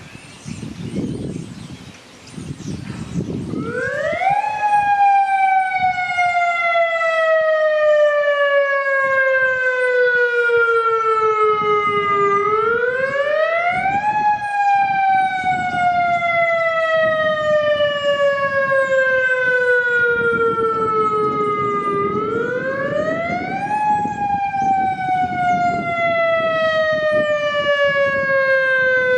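Federal Signal Modulator electronic tornado warning siren sounding a test, very loud, starting about four seconds in. Each cycle is a quick rise in pitch followed by a long, slow fall, repeating about every ten seconds, with several overtones above the main tone.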